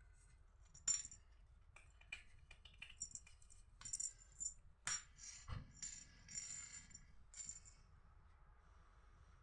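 Light metallic jingling and clicking in short, irregular shakes, several within a few seconds, with a single low knock about five and a half seconds in.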